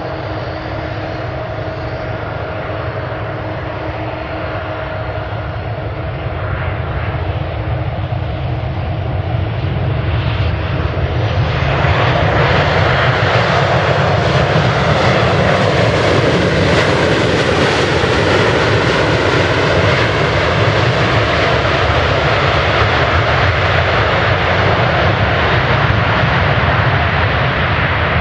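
Boeing 737-800 jet engines whining steadily on final approach. About twelve seconds in, after touchdown, a loud roar of reverse thrust starts suddenly, swells, then slowly eases off as the airliner rolls out on the runway.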